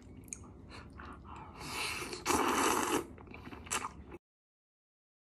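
A person eating spaghetti: quiet chewing, then a long slurp of noodles about two seconds in. The sound cuts off abruptly about a second later.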